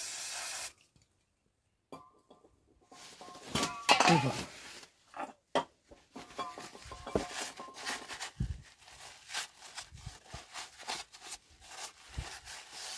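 Aerosol brake cleaner spraying in a steady hiss onto the gearbox casing around the input shaft, cutting off after under a second. After a short pause come scattered light clicks, knocks and rubbing of parts being handled, with one louder brief sound about four seconds in.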